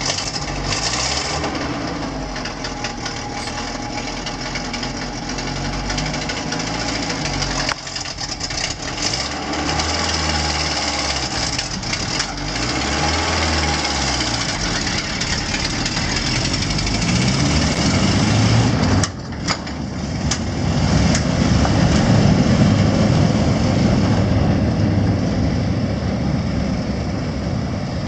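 Volvo BV202 Bandvagn's four-cylinder petrol engine running as the tracked vehicle pulls away, its pitch rising and falling with the throttle and gear changes. There is a brief drop in level about two-thirds of the way through, and it runs louder after that.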